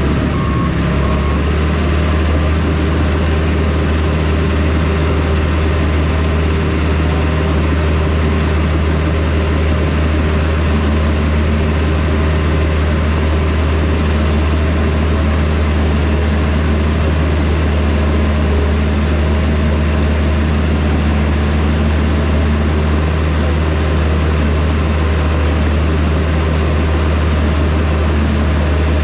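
Diesel engine of heavy earthmoving equipment running steadily at a constant speed, a loud low drone with no revving.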